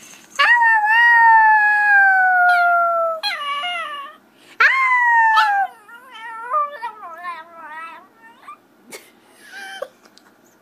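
Chihuahua howling: a long howl of about three seconds sliding down in pitch, a short break, a second shorter falling howl, then a run of brief wavering yelps and whines that trail off, with one last short cry near the end.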